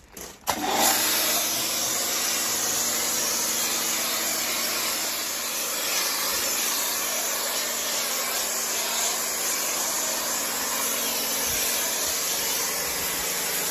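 Karcher K3 electric pressure washer running and spraying car shampoo through its foam nozzle lance: a steady rushing hiss of spray over the pump motor's hum, starting about half a second in when the trigger is pulled. The pump is running on the gun's hard pressure setting rather than the mix setting.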